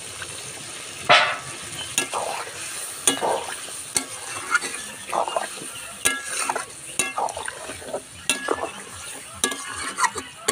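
Metal spatula scraping and knocking against a metal kadai as water is stirred into braised duck curry, in irregular strokes with the loudest about a second in, over a faint steady sizzle from the pan.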